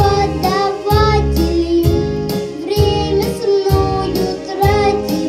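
A boy singing into a handheld microphone over a pop backing track with a steady beat of about two strokes a second.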